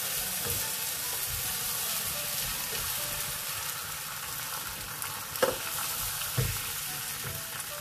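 Beaten egg sizzling in hot oil in a nonstick frying pan as it is poured in and stirred with a wooden spatula, a steady frying hiss. Two sharper knocks of the spatula against the pan come in the last third.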